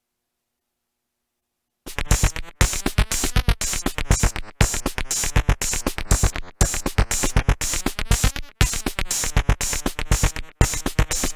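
Electronic music: about two seconds of silence, then a fast drum-machine pattern of rapid hits comes in, breaking off briefly about every two seconds.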